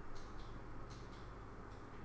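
Quiet room tone: a low, steady mains hum, with two faint soft ticks, one near the start and one about a second in.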